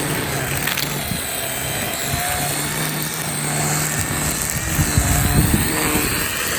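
A small gasoline engine of lawn equipment running steadily, its low note shifting about four seconds in.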